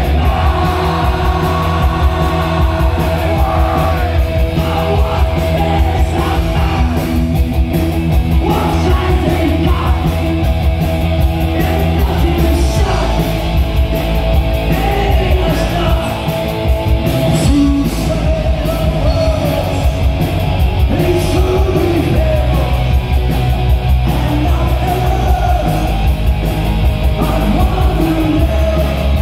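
Loud live punk rock band playing, with electric guitar, bass guitar and drums under a male singer's vocal, heard from the crowd.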